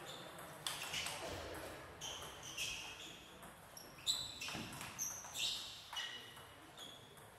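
Table tennis rally: the plastic ball clicking off the bats and bouncing on the table, about one to two hits a second, each with a short high ring.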